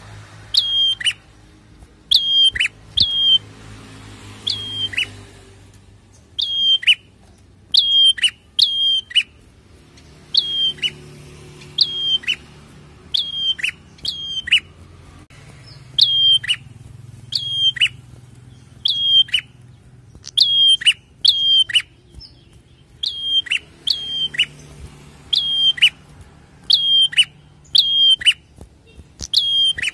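Caged tailorbird (prenjak kepala merah) calling loudly: sharp, high notes, each dropping in pitch, in quick runs of two or three about a second apart, with a short break a little past the middle.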